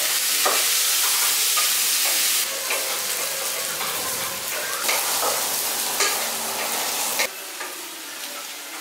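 Chopped onions sizzling in hot oil in a kadai while a spatula stirs them, scraping and clicking against the pan. The sizzle drops to a quieter level about seven seconds in.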